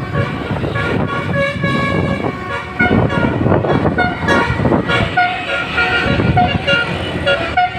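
Indonesian bus telolet horn playing a tune of short, changing notes over the bus engine's running.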